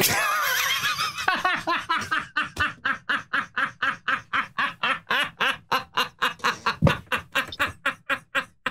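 A man laughing hard: one long, high-pitched laugh, then a steady run of short laugh bursts, about four or five a second, that keeps going for several seconds.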